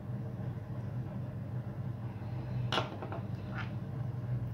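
A steady low hum, with two brief clicks about three seconds in as small metal carburettor parts of a nitro model engine are handled.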